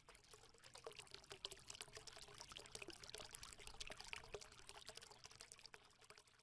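Faint water trickling and pouring, a dense patter of tiny splashes that fades out near the end.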